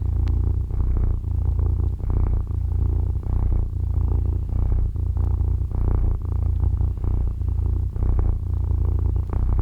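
Domestic cat purring, a steady low rumble that swells and eases with each breath about once a second.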